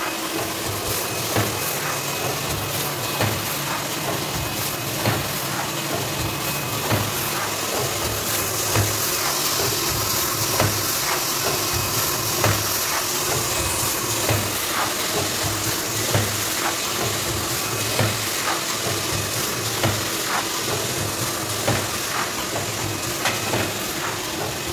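Paper food-tray forming machine running, pressing PE-coated paper into trays: a sharp press stroke about every two seconds over a steady mechanical hiss, with lighter clicks between the strokes.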